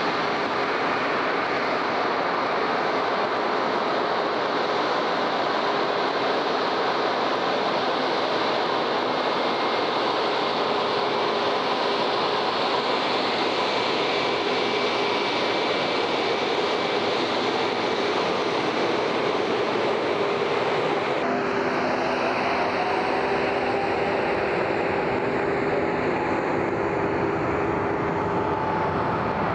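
Turbofan engines of a taxiing Embraer E190-E2 (Pratt & Whitney PW1900G geared turbofans): a steady jet rush with a held whine. About two-thirds of the way through the sound changes abruptly to another twin-engine airliner's jets, whose whine rises slowly.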